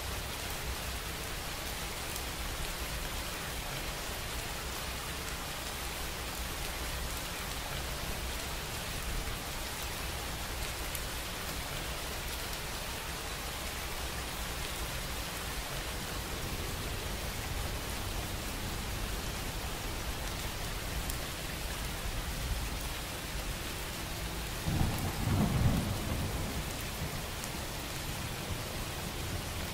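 Steady rain falling, an even hiss with scattered drops. Near the end a brief low rumble of distant thunder rises and fades over about two seconds.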